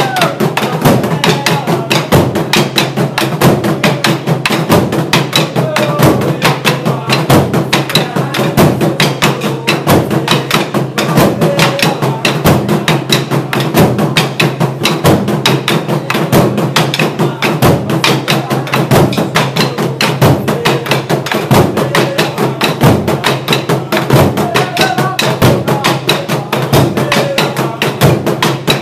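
Burundian ingoma drums, tall wooden drums with hide heads, beaten with wooden sticks by an ensemble in a fast, unbroken rhythm of dense strokes.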